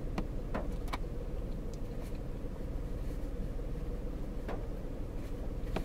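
Steady low hum in a parked car's cabin, with a few faint clicks of a man chewing a soft bread sandwich.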